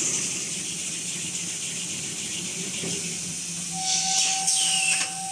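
Toilet paper roll rewinder running steadily with a continuous high hiss and low hum. About four seconds in, a louder hiss sweeps down in pitch over about a second, and a steady high whine comes in with it.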